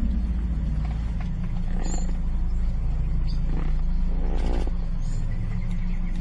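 A low, steady rumble, with a short rough growl-like sound about four seconds in.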